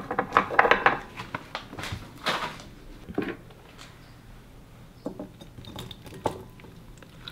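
Kitchen dishes clinking and knocking as a glass measuring cup and bowls are handled and chopped plums are tipped into a glass mixing bowl. A busy run of clicks and knocks comes in the first second or so, then a few single knocks.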